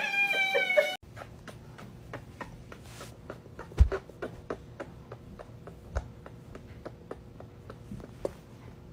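A kitten's meow that cuts off suddenly about a second in. Then faint handling sounds follow: scattered soft clicks and rustles of a kitten held close against fabric, over a faint steady hum, with two duller thumps.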